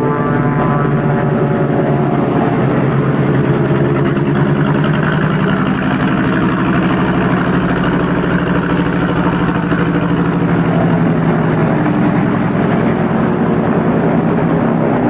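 Aircraft piston engine running steadily after a cold start.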